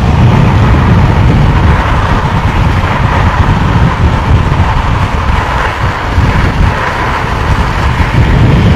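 Steady rush of wind buffeting the microphone over the rumble of longboard wheels rolling fast on asphalt during a downhill run, easing a little midway.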